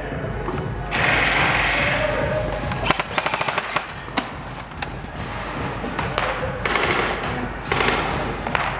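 Airsoft gun firing a rapid burst of about ten shots a second, lasting under a second, about three seconds in, with single shots just before and after. A loud rushing noise runs under it.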